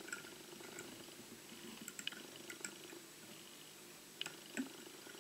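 Faint handling noise from fly-tying work at a rotary vise, with a few light, sharp clicks scattered through it.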